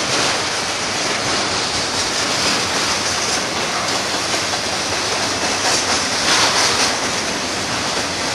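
Double-stack container well cars of a freight train rolling past close by: a steady rushing roar of steel wheels on rail. The hiss swells louder and higher about six seconds in.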